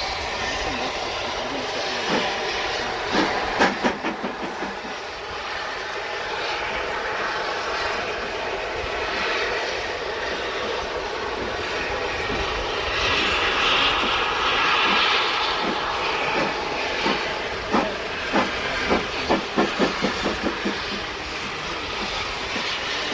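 GER N7 0-6-2 tank steam locomotive running, with a steady hiss of steam that swells for a few seconds past the middle. Two runs of quick sharp clicks, one a few seconds in and a longer one in the second half, like wheels clattering over rail joints.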